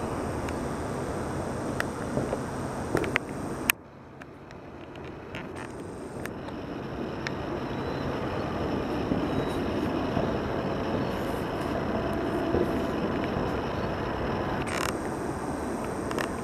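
Distant fireworks bursting with scattered sharp pops and bangs over a steady outdoor rumble. A sharp bang nearly four seconds in is followed by the background dropping away and slowly coming back.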